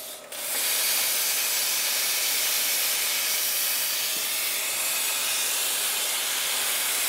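Everlast Hurricane 220 plasma cutter cutting steel plate: a steady, loud hiss of the arc and its compressed-air jet, which comes up to full strength about half a second in as the cut begins.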